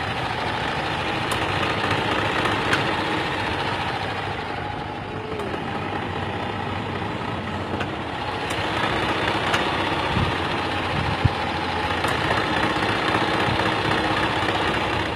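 Newly repaired golf cart driving along a road on a test run: steady motor and road noise, with a few sharp knocks or rattles along the way.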